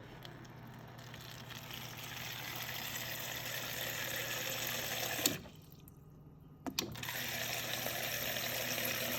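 Water running from a Samsung refrigerator's door dispenser into a container, building up over the first few seconds. About five seconds in it stops with a click and, after a pause of about a second and a half, starts again with another click.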